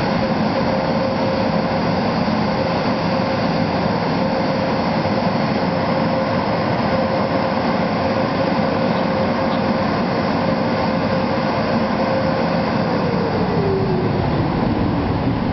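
Road traffic: cars and a pickup truck passing along the road, a steady rushing noise with a steady hum that slides down in pitch over the last few seconds.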